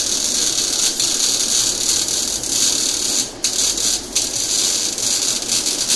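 MIG/MAG semi-automatic welder arc burning on a vertical weld: a steady crackling hiss, broken by two brief drops in the arc about three and a half and four seconds in.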